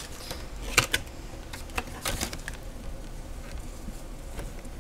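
Cardboard collection box and its contents being handled: a few light taps and rustles as the cards and packs are worked out of the box.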